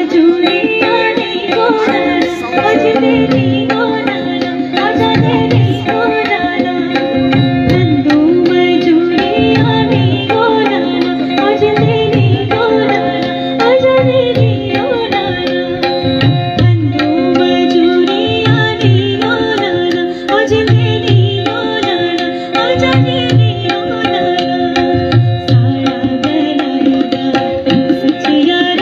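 Live Indian folk music from a small stage ensemble. A hand drum keeps a steady rhythm of low strokes under a sustained drone and a winding melody.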